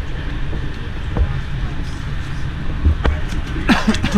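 Steady low rumble of an SBB Interregio passenger train running along the line, heard from inside the carriage. Near the end comes a brief louder sound with a falling pitch.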